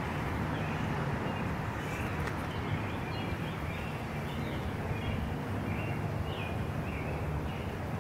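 Outdoor backyard ambience: a steady low background hum with a few faint, short bird chirps scattered through it.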